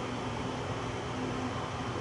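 Steady background rush with a faint low hum, even throughout, with no distinct events.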